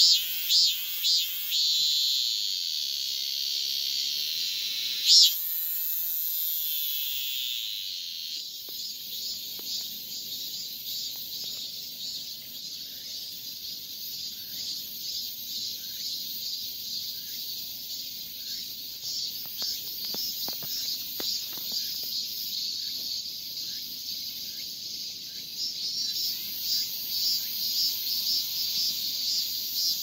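Male Korean robust cicada (Hyalessa fuscata) singing its 'maem-maem-maem' calling song to attract a female. A run of quick pulsed notes merges into a long steady buzz, with one brief louder burst about five seconds in, and the buzz stops about eight seconds in. After that a fainter chorus of cicadas keeps up a rapid, even pulsing, which grows louder near the end.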